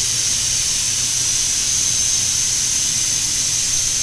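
Pneumatic seam sealer spray applicator spraying a small test bead of 1K seam sealer at low air pressure: a steady hiss of compressed air from the nozzle, with a high steady whistle in it.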